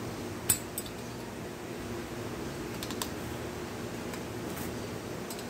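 A few light clicks and taps of metal parts as a car alternator's housing is handled and fitted together by hand, the sharpest click about half a second in, over a steady low background hum.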